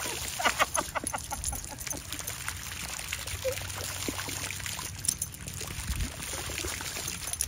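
Water from a garden hose spraying and splashing onto a stone patio as a Doberman puppy bites at the stream.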